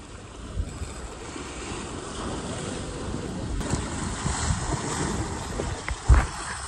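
Surf washing against the jetty rocks, with wind buffeting the microphone, growing louder. A single loud thump near the end.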